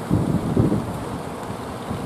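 Wind buffeting the microphone in low gusts during the first second, over a steady rush of surf breaking at the shore.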